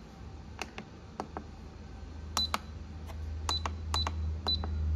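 Control-panel buttons of a Life Element natto maker being pressed: a series of soft clicks, several of them with a short high beep, as the timer is stepped up to 2 hours. A low hum swells underneath in the second half.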